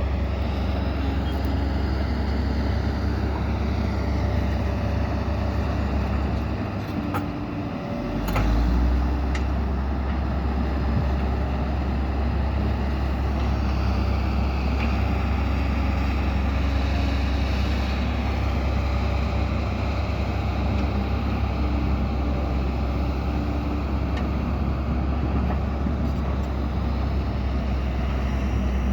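Diesel engines of heavy earthmoving machinery running steadily with a deep rumble, easing off for a moment about seven seconds in and then picking up again, with a couple of short clanks.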